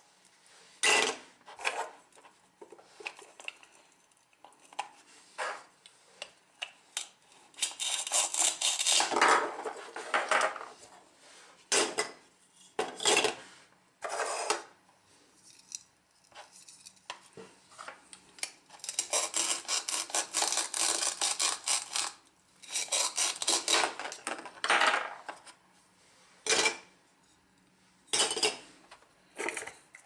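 Plastic toy fruit halves pulled apart at their velcro joins and handled on a plastic cutting board: a crackling velcro tear about eight seconds in and several longer tears between about 19 and 25 seconds, with light plastic clicks and taps between them.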